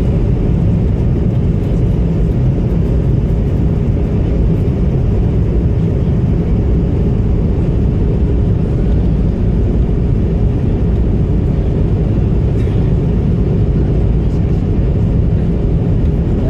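Steady low roar inside the cabin of an Airbus A220-300 airliner, from its Pratt & Whitney PW1500G geared turbofan engines and the airflow, with a faint steady hum running through it.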